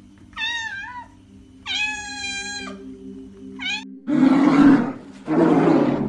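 Domestic cat meowing three times, the last call short, followed by two loud, harsh growls near the end.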